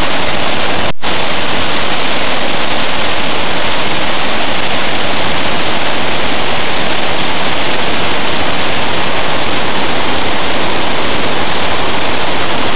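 Loud, steady rush of white water pouring over rocky river rapids, broken by a very short gap about a second in.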